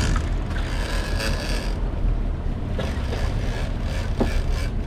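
A boat's engine running steadily with a low rumble, with wind and water noise over it and a few sharp clicks or knocks about three and four seconds in.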